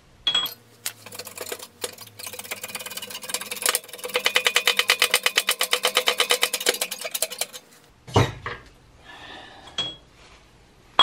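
Hydraulic shop press being worked to press a new wheel hub bearing into the steering knuckle: a fast, even run of clicks, about seven a second, that builds over a few seconds and then stops, followed by a single thump.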